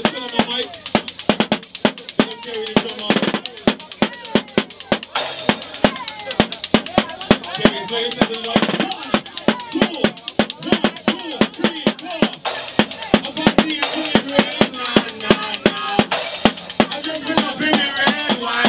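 Live drumming on a snare drum, cymbal and mounted tambourine, with rapid strokes several a second, played along with loud soca party music that has singing in it.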